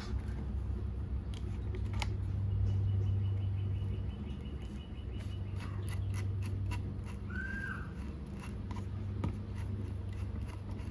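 Scattered light clicks and taps of hands handling tools and parts over a steady low hum, with one short high squeak about seven and a half seconds in.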